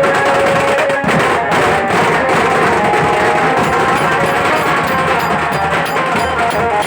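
A dhol band playing a Dahi Handi song: loud, steady drumming under a held melody line.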